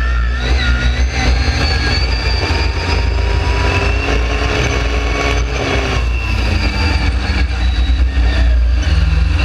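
Dune buggy engine running under way across sand, with heavy wind rumble on the microphone; the engine note shifts about six seconds in.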